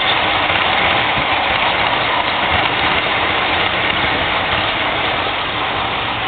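Model train rolling along the track, a steady rolling rumble of wheels on rails that slowly fades as the last passenger cars move away.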